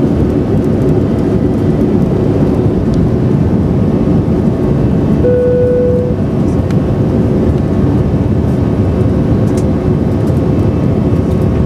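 Airbus A319 cabin noise in the initial climb after take-off: the jet engines and rushing air make a loud, steady rumble, heaviest in the low range. A short steady tone sounds for under a second about five seconds in.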